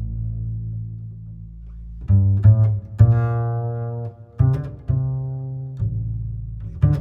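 Music played on low, deep string instruments, with some notes plucked and some held. A long low note dies away over the first two seconds, then new notes come in and are held.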